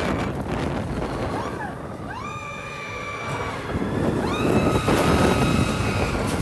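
Expedition Everest roller coaster train running along the track with wind rushing over the microphone, and riders screaming in long held screams about one and a half seconds in and again from about four seconds in.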